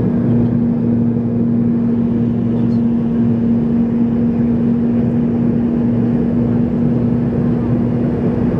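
Cabin noise of a McDonnell Douglas MD-83 airliner with its rear-mounted Pratt & Whitney JT8D turbofans at climb power, heard from a window seat. A loud, steady rushing drone with a constant hum tone through it.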